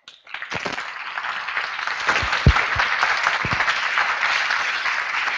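Audience applauding, starting a moment in and building quickly to steady clapping.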